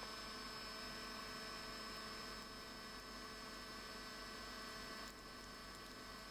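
Faint steady electrical hum with several thin whining tones over a background hiss, and no distinct prying or tool sounds.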